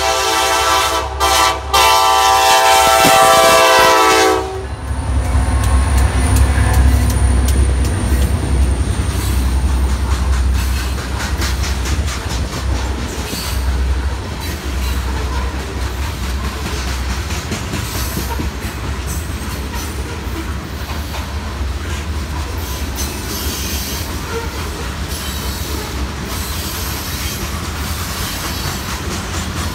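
Diesel freight locomotives sounding their horn for a grade crossing, a multi-note chord with two short breaks that cuts off about four seconds in. A deep engine drone follows as the locomotives pass, then a string of loaded covered hopper cars rolls by with steady wheel noise and clicking over the rail joints.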